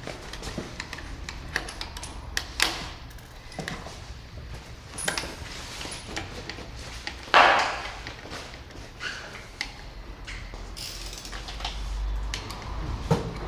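Scattered small clicks and knocks of parts and hand tools being handled while an accessory is fitted at a motorcycle's handlebar, with one louder brief rustling burst about seven seconds in.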